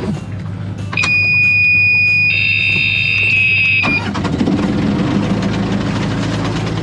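Sailboat's marine diesel engine being started after four months unused: the engine alarm buzzer sounds a steady high beep about a second in, and it cuts off about four seconds in as the engine catches and keeps running.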